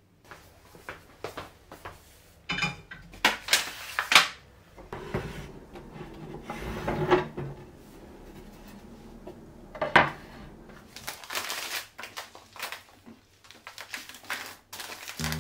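Kitchen handling noises: a run of irregular knocks, clatters and rubbing as a wooden chopping board and spice jars and plastic containers are taken out and set down, with the sharpest knocks about four and ten seconds in.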